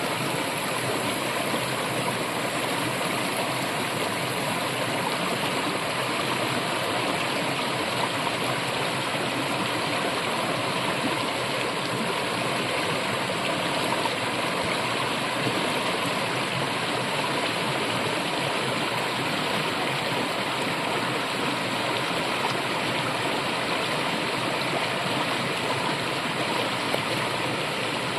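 A brook flowing steadily: an even, unbroken rush of running water.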